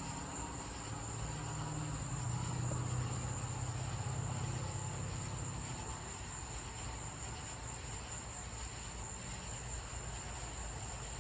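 Night insects trilling steadily in one high, thin tone, over a low hum that grows louder about two seconds in and settles back by about six seconds.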